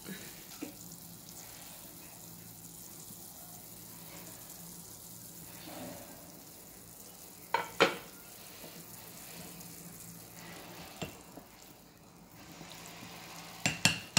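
Pot of chicken and beef broth simmering on the stove with a faint, steady bubbling hiss. A couple of sharp knocks come about eight seconds in, and near the end a wooden spoon clinks against the stainless steel pot as the broth is stirred.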